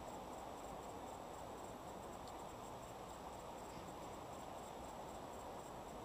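Faint, steady background noise, a low even hiss with a couple of faint ticks about two and four seconds in.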